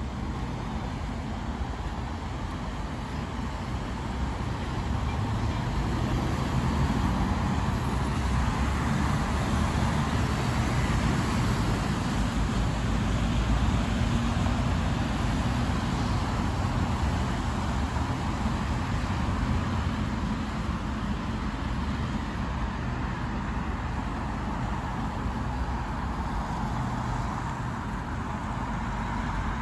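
Steady road traffic running past, getting louder for several seconds in the middle as a lorry goes by, then easing off.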